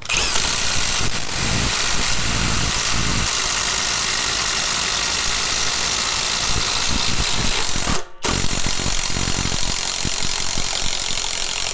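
Two cordless brushless impact drivers, a Skil and a Milwaukee, running together with their impact mechanisms hammering as 1-inch spade bits bore into a wooden beam. The noise cuts out for a moment about eight seconds in, then resumes until the drivers stop near the end.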